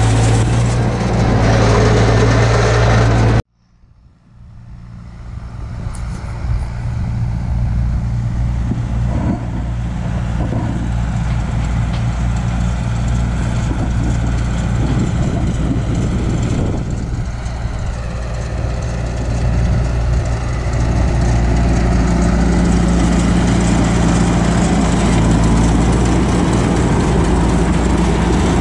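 Tractor engine running steadily as it pulls a New Holland 650 round baler, heard close up at first. It cuts off suddenly a few seconds in. The same running rig then fades back in from a distance and grows steadily louder as it approaches, staying loud and steady near the end.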